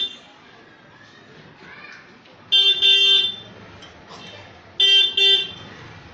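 A vehicle horn honking in the street: one long blast about two and a half seconds in, then two short toots near the end.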